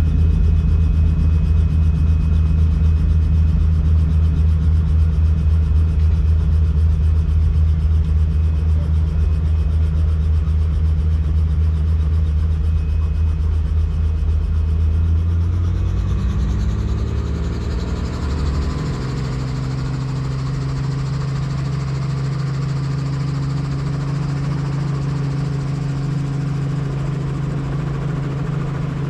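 Helicopter rotor and turbine engine running with a steady low rotor thump. About 16 s in the pitch rises over a few seconds, then holds steady at the higher pitch as the rotor speeds up.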